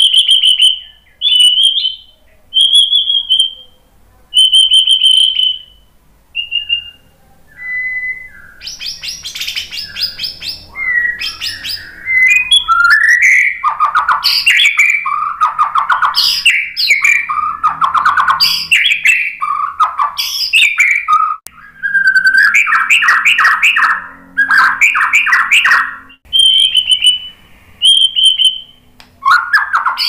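White-rumped shama in full song. It opens with a few clear whistled notes, each held about a second, then from about a third of the way in breaks into a fast, varied run of trills, rattling phrases and quick rising and falling notes, and returns to whistles near the end.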